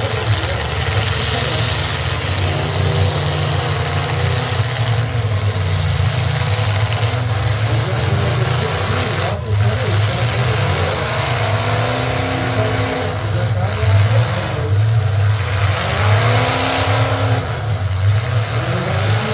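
Demolition derby trucks' engines running hard throughout, revving up and down repeatedly as they push against each other.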